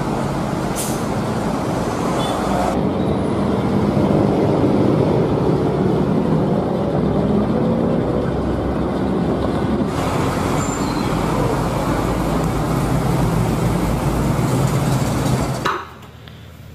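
Buses on a road, engines running with tyre and traffic noise, steady throughout, changing abruptly about 3 and 10 seconds in. The sound cuts off suddenly near the end.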